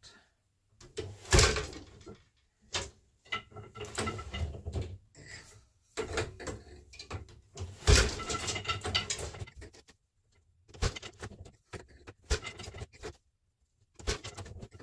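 Wooden knocks and rattling of a multi-shaft loom being woven on: the beater is pulled against the cloth and the shafts and treadles clunk as the shed changes. The sharpest knocks come about a second and a half in and again about eight seconds in.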